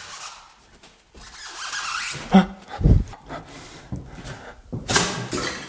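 Rubbing and scraping noises, with a sharp knock and a dull thump about halfway through.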